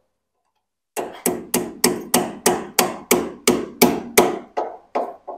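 Hammer striking metal in a steady run of about fourteen blows, roughly three a second, each with a short ring. They start about a second in and the last few are lighter.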